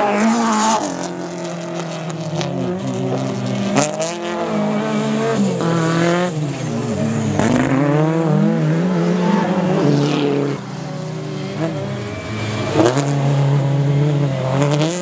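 Racing car engine roaring at high revs on a dirt autocross track. The pitch climbs and falls again and again as the driver works the throttle and changes gear through the slides, and drops for a moment about ten seconds in.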